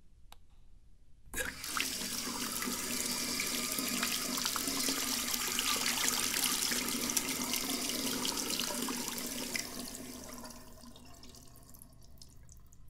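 Bathroom sink tap turned on about a second in, water running steadily into the basin, then dying away near the end.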